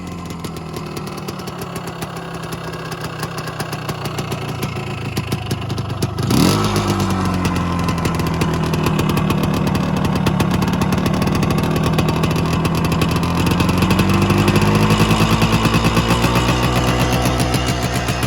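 1974 Maico 250's two-stroke single-cylinder engine running through an FMF Stealth Q-core muffler and spark arrestor. It idles steadily for about six seconds, then the throttle is blipped sharply. After that it runs at higher revs that sag and then climb again toward the end.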